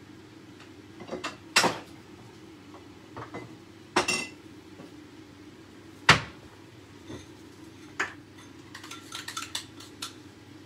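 Crockery and cutlery clattering in a kitchen: four separate sharp clinks and knocks about two seconds apart, then a quick run of lighter clinks near the end as a metal spoon stirs in a ceramic bowl, over a steady low hum.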